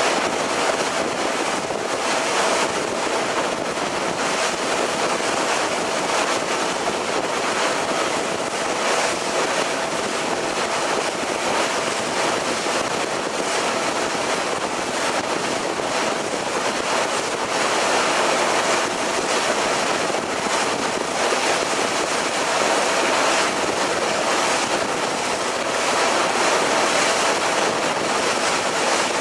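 Steady rush of wind and sea water along a passenger ferry under way, with wind buffeting the microphone and a faint steady whine from the boat's engine underneath.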